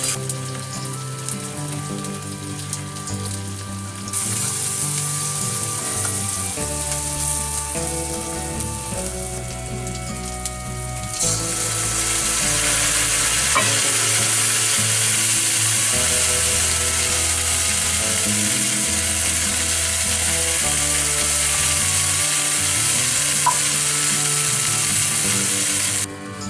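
Chili chicken sizzling in oil in a wok, the frying growing louder and brighter about eleven seconds in and dropping away just before the end. Background music with slow, held low notes plays under it.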